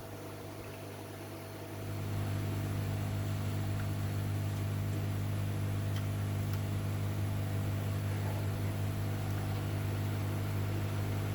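A steady low electrical or machine hum that gets louder about two seconds in, then holds level.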